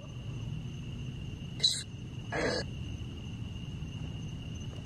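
Crickets trilling steadily in the night air, with two brief bursts of noise about one and a half and two and a half seconds in.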